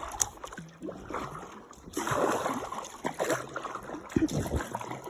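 Kayak paddle strokes dipping and splashing in a steady rhythm, about one stroke a second, with water washing and trickling along the hull as the kayak moves.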